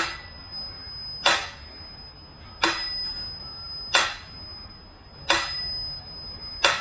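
Mechanical pendulum metronome ticking slowly: six sharp ticks, one about every 1.3 seconds, each leaving a high ringing tone behind it.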